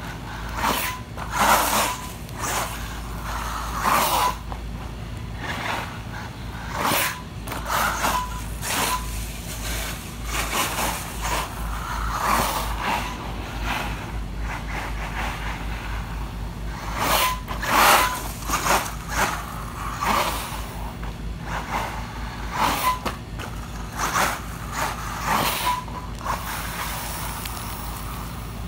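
Traxxas UDR electric RC truck being driven hard on dirt. Its motor whines up and down in repeated throttle bursts every second or two as it speeds about.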